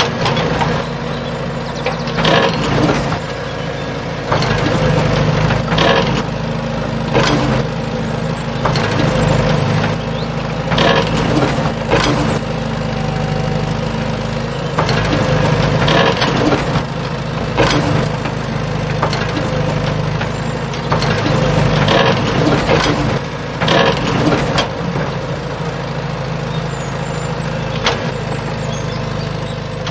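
Small electric motor of a miniature DIY stone crusher running steadily, with stones cracking and clattering as they are crushed, about one sharp crack a second at irregular intervals.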